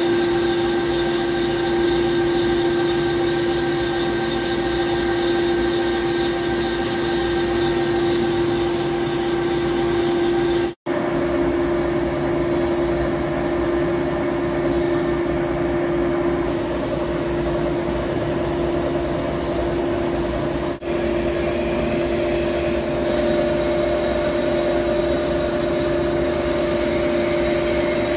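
Hankook PROTEC-9NC CNC lathe running steadily while turning a forged steel shaft, a constant machine hum with several steady tones over a noise bed. It cuts out for an instant twice, about 11 and 21 seconds in, and the tone changes slightly after the first break.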